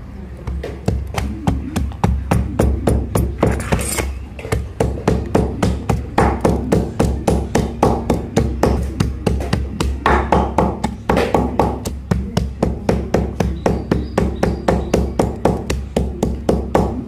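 A long run of even, sharp strikes on wood, about four a second, each with a low thud, with music.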